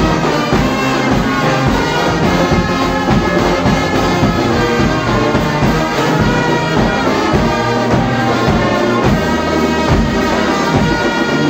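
Marching brass band playing: trumpets, trombones and sousaphones holding full chords over repeated bass drum beats.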